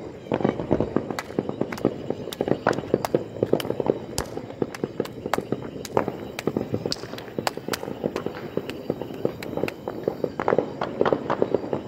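Many firecrackers and fireworks going off at once: a dense, irregular run of sharp pops and bangs with no let-up.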